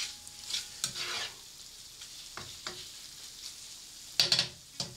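A spatula stirring and scraping through a saucy stir-fry of meat and peppers in a nonstick skillet, with the food sizzling underneath. There are several short strokes, with the loudest cluster about four seconds in.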